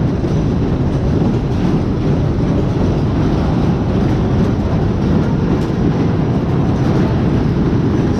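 Steady, loud rumbling noise of a fairground ride in motion, without pauses or distinct tones.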